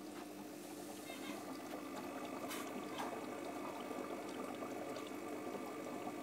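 Aquarium water circulating: a faint, steady trickling hiss with a low steady hum from the tank equipment, and a couple of faint ticks near the middle.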